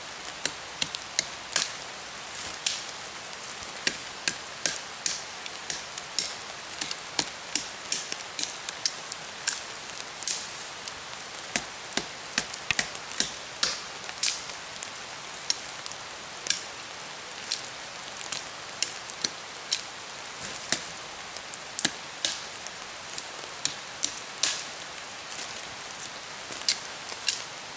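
Fixed-blade knife slicing through thin dead dry branches with quick swinging cuts: dozens of sharp, irregular strikes, about two a second, over a steady hiss of rain.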